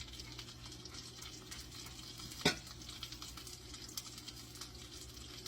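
Coated chicken frying in a little oil in a pan, a steady sizzle with small crackles. A single sharp clack sounds about two and a half seconds in.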